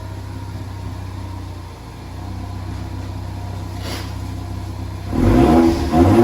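Car engine idling steadily, then revved hard about five seconds in.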